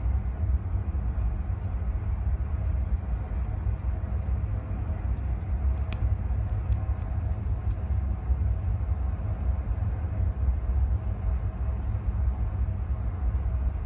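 Steady low rumble of a hovering search-and-rescue helicopter mixed with wind buffeting, under a faint steady hum, with a few faint scattered clicks.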